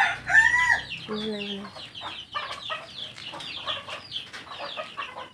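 Chickens clucking in a busy run of short calls, with one louder call about half a second in.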